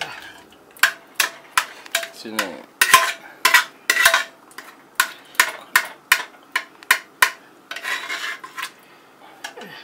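Metal spoon stirring and scraping thick cooked taro leaves in an aluminium pressure cooker: a quick, uneven run of clinks and scrapes against the pot, some ringing briefly.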